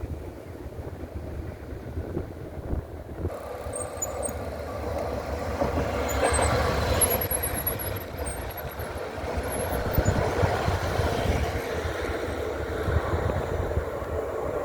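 Train running on rails, a steady low rumble that swells about halfway through, with short high-pitched wheel squeals in the middle.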